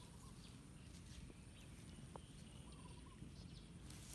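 Near silence: faint outdoor ambience by the water, with a few soft clicks and a couple of faint short chirps.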